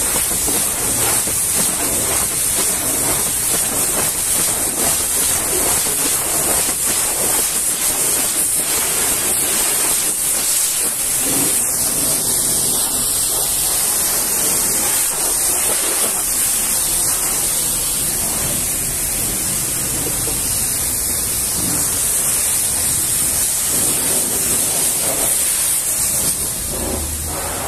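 Pressure-washer jet spraying the painted cab and grille of a Volvo FH truck, rinsing off the soap: a steady, high hiss of water on the panels.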